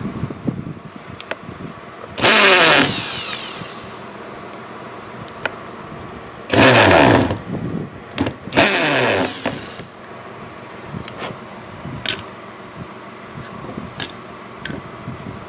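Handheld power drill run in three short bursts, each spinning up and winding down in pitch when the trigger is let go, as holes are drilled for a strap. A few sharp clicks follow near the end.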